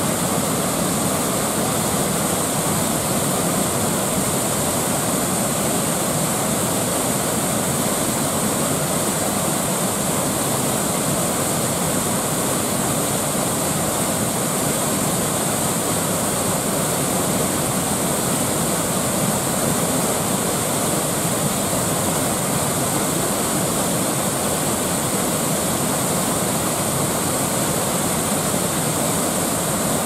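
Steady rush of a wide, low waterfall pouring into a churning white-water pool, an even noise with no let-up.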